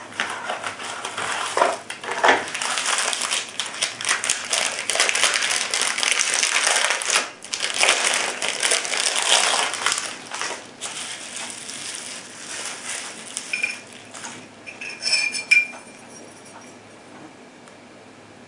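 Clear plastic blister packaging and bubble wrap crackling and crinkling as they are pulled open and removed, for about the first ten seconds. Later come a couple of light ringing metallic clinks from the aluminum grip panels, the louder one about fifteen seconds in.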